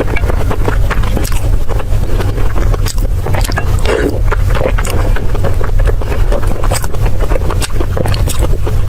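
Close-miked eating: chewing and biting with many short, sharp clicks and smacks, over a steady low rumble.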